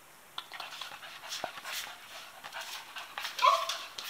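A dog panting hard, quick breathy strokes about three a second, out of breath after excited play. Near the end comes one brief high-pitched sound, the loudest moment.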